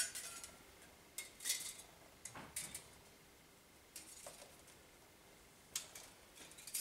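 Steel bandsaw blade, 1 inch wide with 2 teeth per inch, faintly clicking and scraping as it is twisted and coiled by hand into five loops: scattered short metallic clicks at irregular moments.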